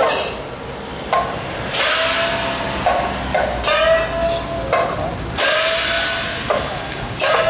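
Chinese-style festival percussion for the Tojin-bune float: cymbals clashed together with a gong whose note bends upward, struck roughly once a second.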